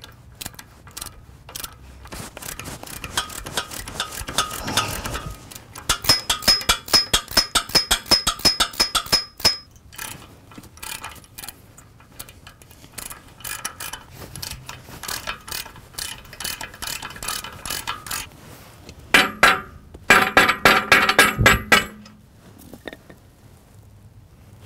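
A tap being turned by hand with a T-handle tap wrench into a steel pipe fitting. The wrench clicks in quick, even runs, about five clicks a second at the loudest, with a louder spell about six seconds in and another near the end.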